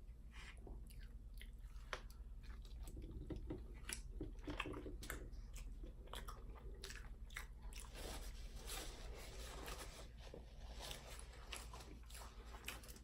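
Close-miked chewing and biting: a run of soft, wet mouth clicks and smacks as a person eats.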